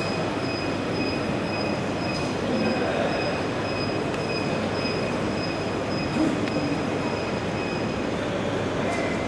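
SOLARCO corrugated-box flexo print and rotary die-cut machine running, its cylinders turning: a steady mechanical noise with a thin high whine that stops about eight seconds in.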